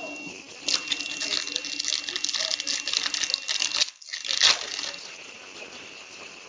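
Foil trading-card pack wrapper crinkling as it is handled and torn open: a dense crackle for about three seconds, then a short burst of crinkling.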